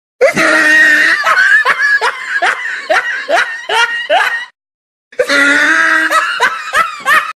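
Loud laughter sound effect: a run of rhythmic ha-ha bursts, a brief pause of about half a second, then a second run of the same laughing.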